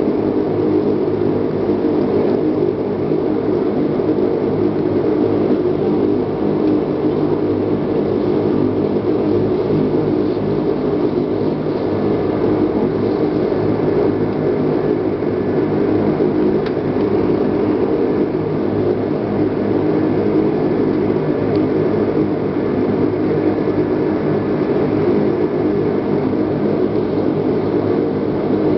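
Steady drone of a Dash-8's twin turboprop engines and propellers, heard inside the passenger cabin, with a constant hum of several low propeller tones over the rushing noise.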